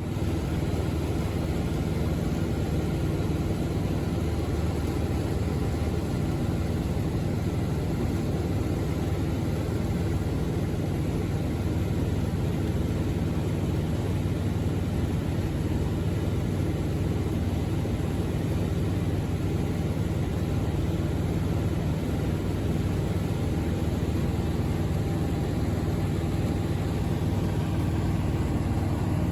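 An engine running steadily: a constant drone with a low hum that does not rise or fall.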